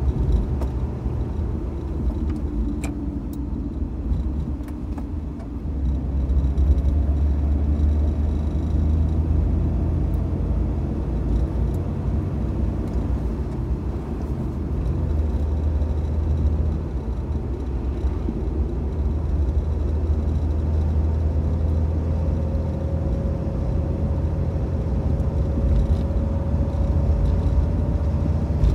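A Mitsubishi Debonair driving, heard from inside the car: a steady low engine and road rumble. Over the last few seconds a faint whine slowly rises in pitch.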